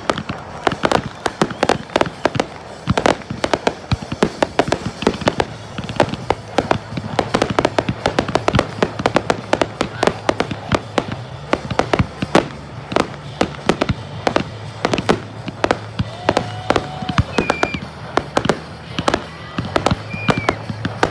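Fireworks going off in a dense, rapid volley, several sharp bangs and cracks a second without let-up.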